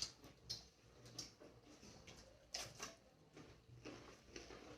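Near silence with a few faint, scattered clicks and light knocks of people eating a meal.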